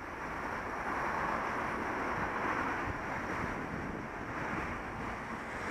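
Steady wind rush on an on-board camera's microphone, with low road and traffic noise beneath.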